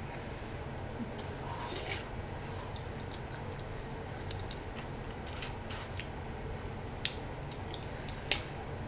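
Snow crab shell cracking and snapping as the legs are broken apart by hand, with a rustling scrape about two seconds in and a few sharp cracks near the end, the loudest just before it stops. A steady low hum lies underneath.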